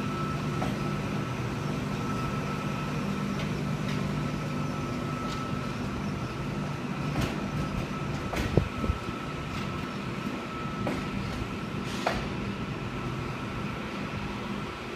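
V-set double-deck electric train rolling slowly into the platform: a steady low hum with a thin steady whine above it, and a few sharp clicks and knocks, the loudest about eight and a half seconds in.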